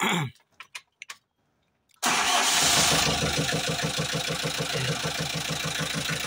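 Hyundai H100's D4BB four-cylinder diesel starting, catching abruptly about two seconds in and settling into a steady idle with an even rhythmic knock, like drumming inside the engine. The mechanics put the noise down to compression leaking past a valve or the head gasket and blowing back into the air filter housing.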